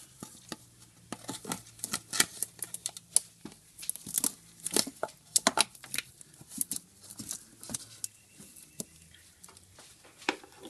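Blue plastic funnel being worked into the transmission dipstick tube by hand: irregular crackling, rubbing and clicking of plastic against hoses and wiring, busiest in the first two-thirds and thinning out near the end.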